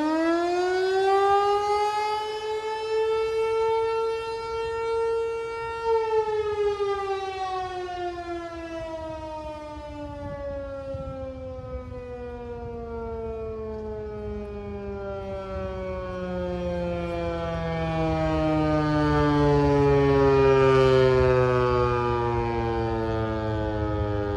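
American Signal Corporation T-128 tsunami warning siren. Its tone rises to a steady high pitch, then about six seconds in starts winding down, the pitch falling slowly and steadily for the rest of the time while the volume swells and fades.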